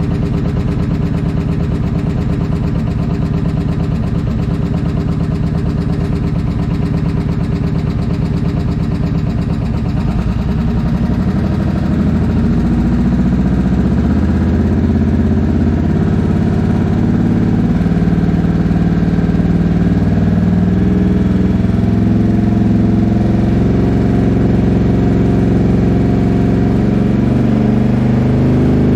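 2005 Suzuki Boulevard C90's V-twin engine running steadily at idle in a shop. About ten seconds in, the engine speed rises and then holds higher, wavering. It is running on a newly fitted stator and regulator/rectifier while its charging system is tested.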